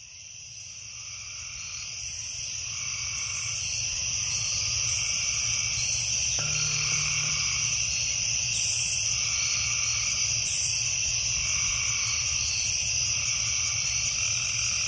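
Night-time nature chorus of insects trilling in a steady high drone, with frog calls repeating every second or two. It fades in over the first few seconds.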